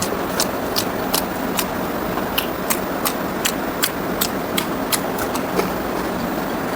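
A person chewing pork ribs and rice close to the microphone: wet mouth clicks and smacks about two to three times a second, over a steady background hiss.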